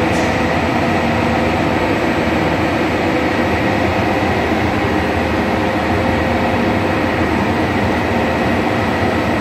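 BOBST printing press running: a loud, steady mechanical drone with a few faint steady tones through it.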